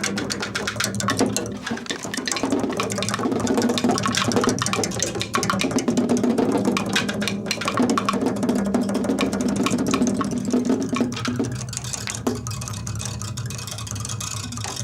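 Found-object noise music: dense, rapid scraping and rattling on improvised instruments over low sustained tones.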